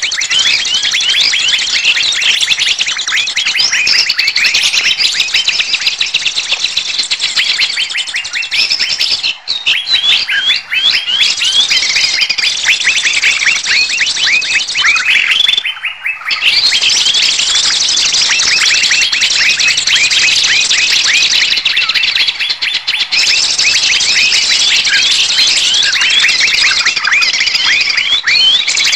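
Bird-trapping lure recording: a dense, noisy chorus of many small birds chirping and calling at once, a steady flurry of rapid high chirps that dips briefly twice.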